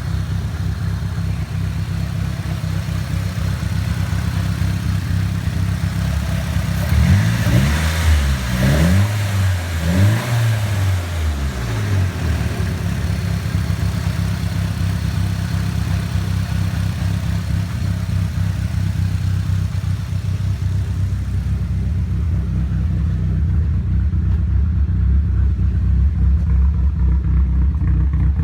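Nissan Silvia S15's 2.0-litre four-cylinder engine idling roughly, blipped twice in quick succession about a third of the way in, rising and falling in pitch, then settling back to the uneven idle. The rough running began after the engine was taken out and refitted; the cause is not yet known.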